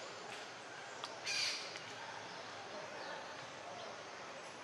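A single short harsh animal call about a second in, over a steady outdoor background hiss.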